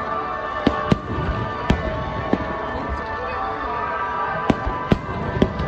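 Aerial firework shells bursting: about seven sharp bangs at uneven intervals, with music playing steadily underneath.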